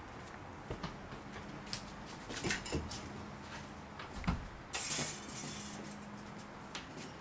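Footsteps and scattered light knocks as people walk into a house, with a thump a little past four seconds and a short rushing scrape just after as a door is pushed open.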